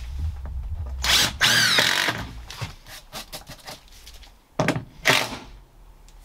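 Cordless drill driving deck screws down through a 2x4 base plate. There is one run of about a second, its motor whine rising and falling, and then two short bursts near the end.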